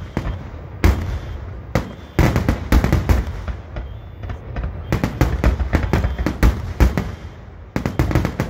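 Fireworks finale: aerial shells bursting in quick succession, a dense run of sharp bangs over a continuous low booming rumble, easing slightly around four and seven seconds in before picking up again.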